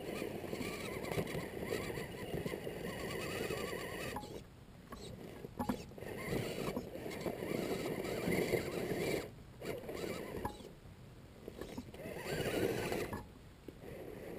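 Electric motor and geared drivetrain of an RC rock crawler whining as it claws up rock, the pitch wavering with the load. It stops briefly three times, about four, nine and thirteen seconds in.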